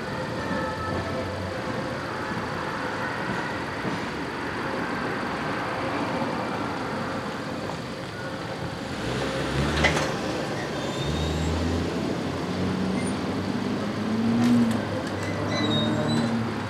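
A CTA rapid-transit train running on the tracks beyond a grade crossing. Later in the clip the low sound of road vehicle engines comes in and rises near the end.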